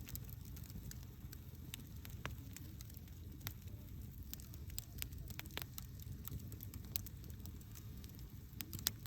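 Wood campfire burning: a steady low flame rumble with irregular sharp crackles and pops of the burning wood. The louder pops come about seven seconds in and just before the end.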